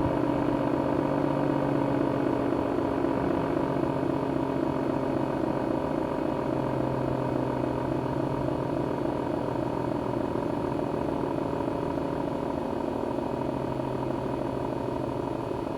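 ACA Cyclone 125 electromechanical warning siren sounding, a steady wailing tone whose loudness slowly falls.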